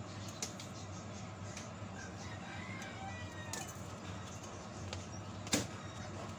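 Faint bird calls over a low steady background hum, with a few light clicks and one sharper click about five and a half seconds in.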